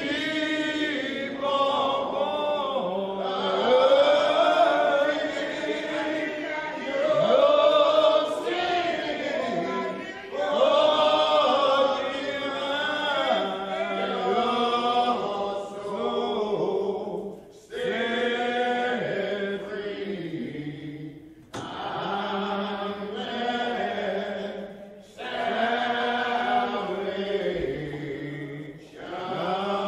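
Men's voices singing a slow hymn together in long, drawn-out notes, phrase after phrase with short breaths between them.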